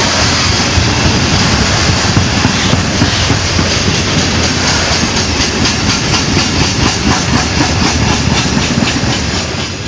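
Loaded grain hopper wagons rolling past close by: a steady rumble of steel wheels on the rails, with a quick run of clicks over the rail joints growing more distinct in the second half. The sound fades out near the end.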